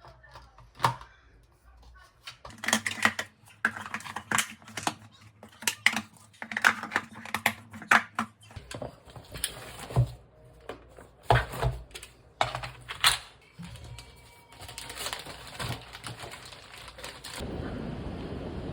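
Kitchen prep noises: irregular sharp taps and clacks of utensils and containers. A steady rushing hiss starts near the end.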